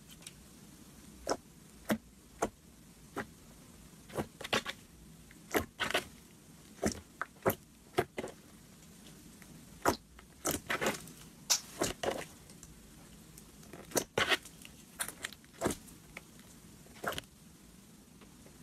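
Glossy slime being squeezed and pressed by fingers, giving irregular sharp clicks and pops, a few at a time, clustering more densely about halfway through.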